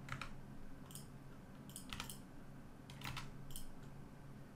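Computer keyboard keys and mouse buttons clicking now and then, about one press a second, over a faint steady low hum.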